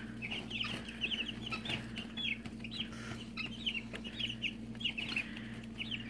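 A brood of young meat-bird chicks peeping, many short high chirps following each other without pause, over a low steady hum.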